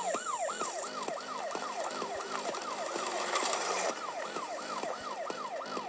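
Police siren wailing in fast repeated up-and-down sweeps, about three a second.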